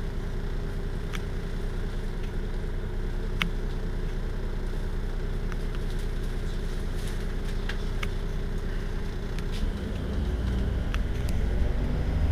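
Iveco Urbanway 12 city bus engine idling steadily at a stop, with a few sharp clicks. About ten seconds in, a deeper rumble swells louder and rises in pitch.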